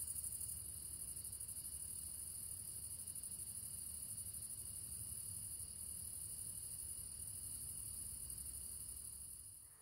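Crickets chirring steadily, a high continuous trill with a fine rapid pulse, fading out near the end.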